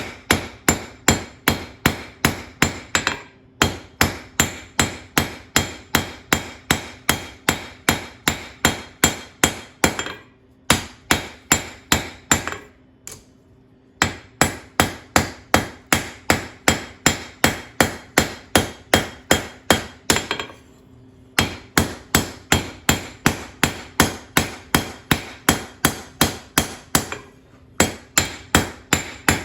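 Hand hammer striking hot steel tong reins on an anvil, drawing them down to a taper. The blows come at about three a second in runs of several seconds, broken by short pauses, with a faint ring after each blow.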